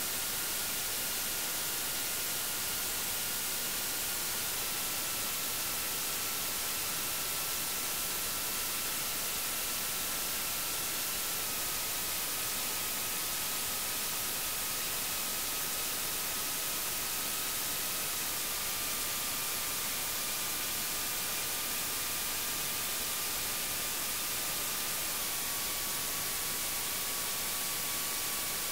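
Electronic soundtrack of steady hiss of white noise, with a faint high tone beneath it that steps down slightly in pitch about every seven seconds.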